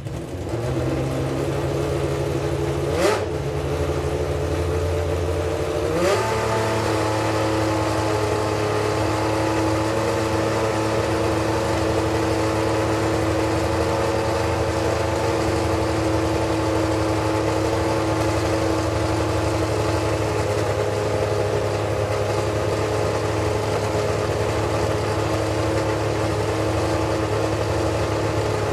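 Superleague Formula Panoz DP09B's 4.2-litre Menard V12 idling steadily, with two brief small lifts in revs about three and six seconds in before it settles at a constant idle.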